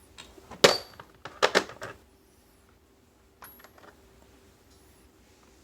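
Steel socket-set tools, a drive extension bar among them, clinking against each other and the plastic case as they are handled. There is a sharp metal clink with a short high ring about half a second in, a quick cluster of clacks around a second and a half, and lighter clicks near three and a half seconds.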